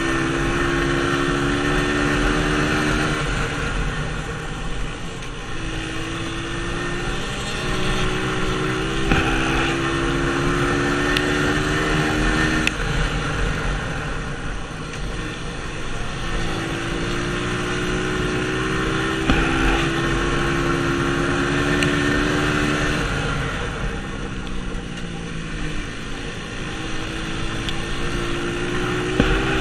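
Dirt bike engine heard from on board as it laps a dirt oval, its pitch climbing under throttle along the straights and dropping away as it backs off into the turns, several times over.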